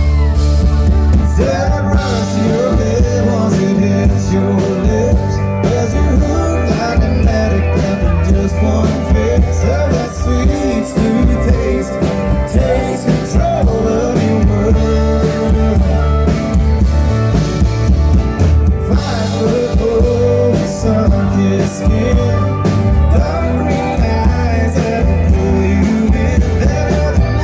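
Country band playing live: full band music with guitar and a heavy bass line.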